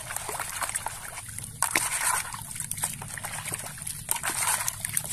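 Water sloshing and splashing in a plastic bucket as a hand swishes a plastic toy through it, washing off the mud, with many small irregular splashes.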